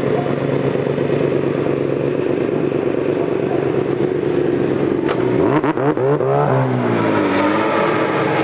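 BMW S1000RR superbike's inline-four engine idling steadily, then revving up about five seconds in, its pitch climbing for about a second before dropping back to a steady note.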